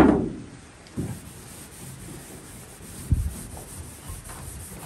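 A cloth rag rubbing back and forth over the aluminium hull of a jon boat, wiping it down to take off grease. There is a loud thump at the very start and a couple of lighter knocks about one and three seconds in.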